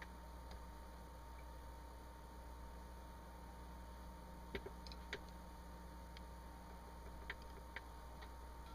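A few light metallic clicks as the bolt and small pins of an AR-15 bolt carrier group are handled and fitted together during reassembly, a couple about halfway through and a couple more near the end, over a steady electrical hum.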